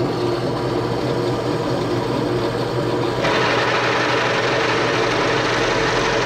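Electric drill running under load, boring through a steel delivery valve holder, with a steady motor hum. A harsher cutting hiss joins about three seconds in.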